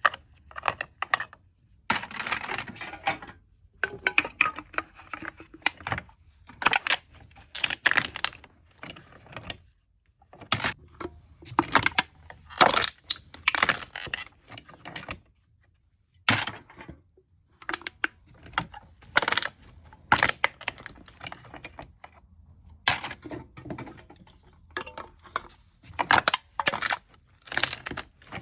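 Aluminium cans being crushed: a run of crisp crinkling and crackling crunches, some short, some drawn out for about a second, with brief pauses between.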